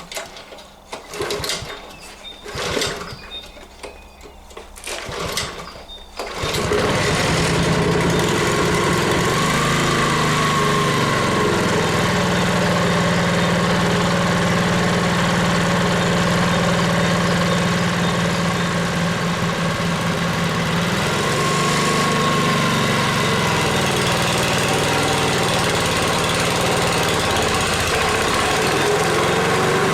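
Honda four-stroke lawnmower engine being pull-started at its first start of the season. A few rough tugs come in the first seconds, then it catches at about six seconds and runs steadily, its speed wavering briefly twice.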